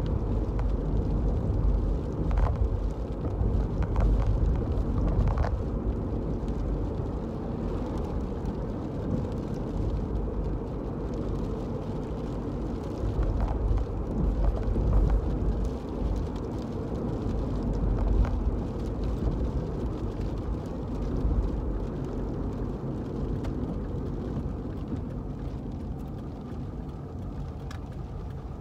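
Road and engine noise inside the cabin of a 2005 Toyota Scion being driven: a steady low rumble that swells and eases, with a few faint clicks between about two and five seconds in.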